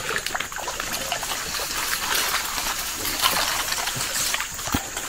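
Shallow forest stream water rippling and trickling steadily, with faint scattered ticks.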